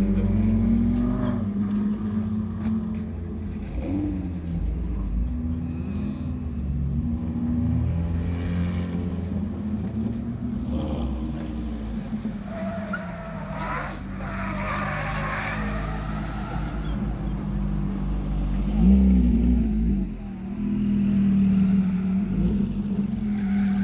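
Ferrari V8 sports cars lapping a tight circuit, their engines revving up and easing off through the corners, with the loudest rise near the end.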